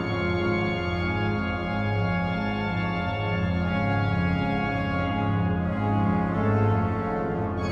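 Organ playing sustained chords, with the bass notes moving about once a second.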